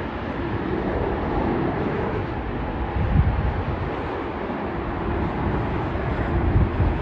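Airbus A380 jet engines running, a steady rumble with a faint hum, with wind buffeting the microphone in gusts.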